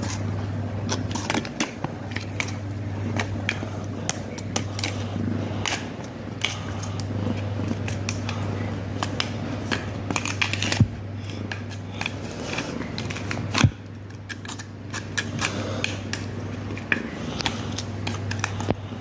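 A kitten batting, clawing and rolling at a red ribbon on a mat: irregular light scratches, rustles and clicks over a steady low hum, with two louder knocks a little past the middle.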